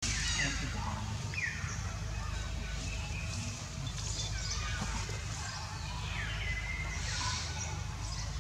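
Outdoor ambience: a steady low rumble with scattered short high chirps and calls, a couple of them falling in pitch.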